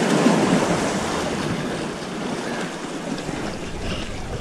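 Sea waves washing against the boulders of a rock breakwater, a steady rushing wash that is loudest in the first second and then eases slightly, with wind on the microphone.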